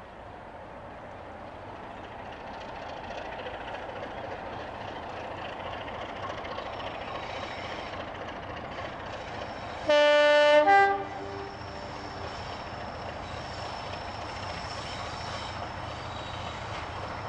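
BR Class 33 'Crompton' diesel locomotive running, its Sulzer eight-cylinder engine growing louder over the first few seconds. About ten seconds in it sounds its horn in a short two-note blast, a lower note then a higher one, the loudest thing here, and then the engine noise carries on.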